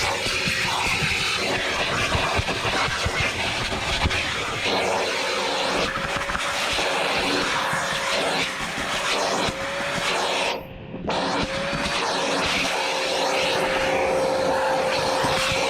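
Vacuum cleaner running steadily with a constant motor hum, its pitch wavering slightly as the nozzle works over the car's interior, with small clicks of debris being picked up. The sound is briefly muffled for about a second near the end, as the nozzle is blocked against a surface.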